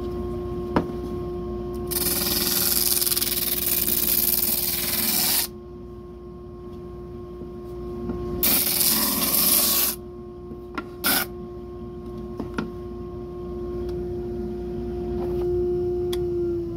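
Disc sander motor running with a steady hum while a glued-up wood block is pressed against the spinning sanding disc. The contact gives two spells of loud gritty hiss, one about two seconds in lasting some three seconds and another near eight and a half seconds lasting about a second and a half, with a few sharp clicks as the block touches. Near the end the hum begins to drop in pitch and level as the motor winds down.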